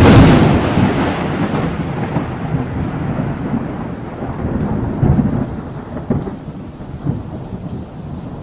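A thunderclap that hits suddenly and rolls on as a long rumble, swelling again a couple of times in the middle and slowly fading.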